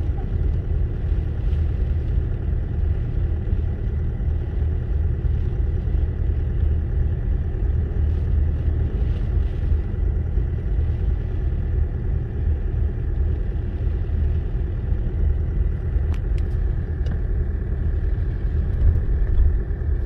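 Car driving, heard from inside the cabin: a steady low rumble of engine and road noise, with a couple of faint clicks near the end.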